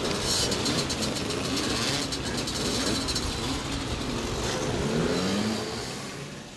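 Several small two-stroke moped engines revving and pulling away, their pitches rising and falling over one another. The sound falls off near the end.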